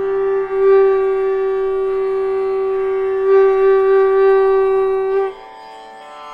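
Conch shell (shankha) blown in one long, steady note that breaks off about five seconds in, leaving quieter sustained music underneath.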